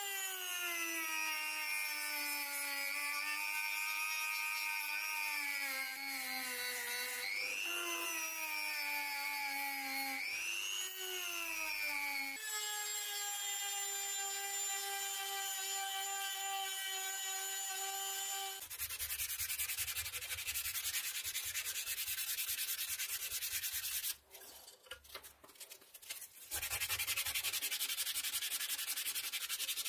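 A handheld rotary tool with a sanding drum whines as it grinds a steel knife tang and its wooden handle scales, its pitch sagging and recovering as it is pressed in, then holding steady. From about two-thirds of the way in, the whine gives way to hand sanding with sandpaper on the wooden handle, a steady scratchy rubbing with a brief pause.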